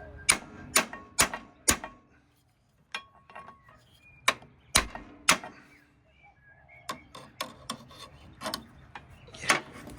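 Sharp metallic clicks of hand tools working the mower's belt tensioner: a run of four about two a second, three more after a short pause, then scattered clicks near the end.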